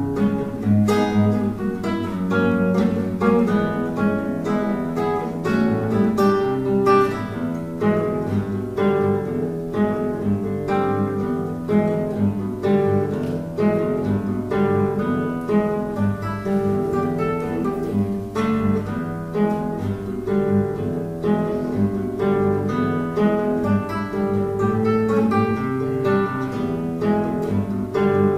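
Background music: an acoustic guitar instrumental with quick plucked notes and strums.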